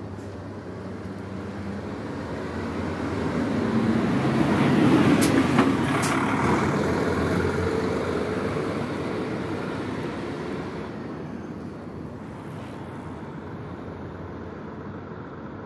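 A motor vehicle passing close by on the road: its noise swells to a peak about five seconds in, then fades away over the next several seconds.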